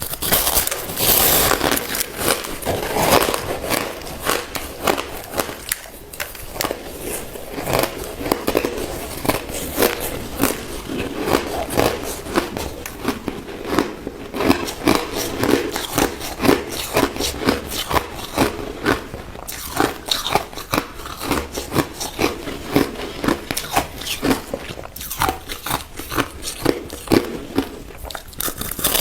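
Close-miked biting and chewing of crushed ice: dense, irregular crunching and crackling, in louder bursts with each new bite.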